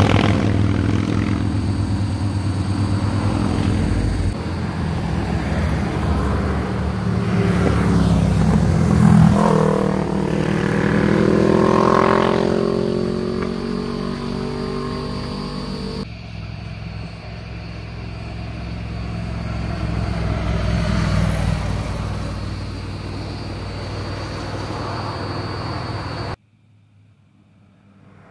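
Motorcycles and a car passing on a winding road, engines accelerating through the bend. One engine's pitch climbs and then drops sharply as it goes by, about twelve seconds in. The sound cuts abruptly twice, and the last two seconds are much quieter.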